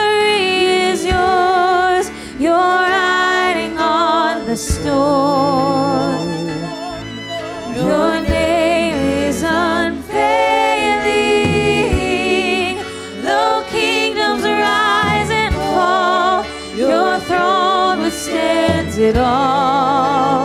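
Live worship song: a woman sings long, wavering held notes over keyboard and electric guitar, phrase after phrase with short breaths between.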